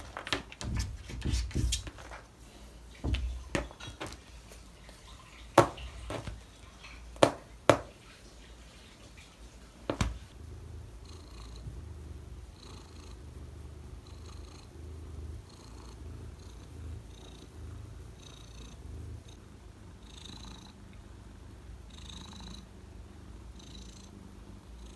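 A cat pawing and butting at a wooden door: a series of sharp knocks and thumps over the first ten seconds. After that, a steady low purr while its belly is stroked, with soft rustles of fur.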